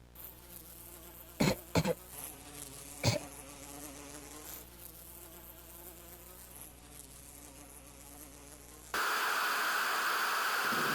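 A faint steady buzzing hum, broken by three sharp knocks in the first few seconds. About nine seconds in, a loud hiss cuts in suddenly.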